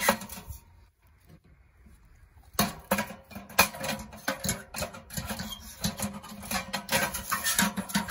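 Metal stovepipe sections of a Winnerwell Woodlander wood stove clanking and scraping as they are slid and dropped into the stove body, in irregular knocks and rattles. There is a pause of about two seconds near the start, then the clattering picks up again.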